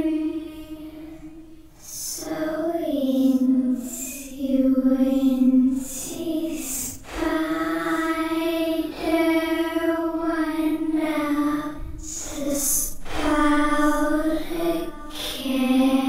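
A creepy little girl's voice singing a slow lullaby-like melody in long held notes, phrase after phrase, with short breaks between phrases.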